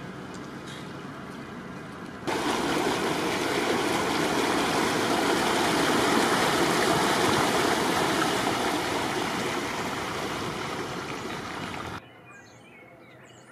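Floodwater running, a steady loud rush of water that starts abruptly a couple of seconds in and cuts off near the end, where faint bird chirps take over.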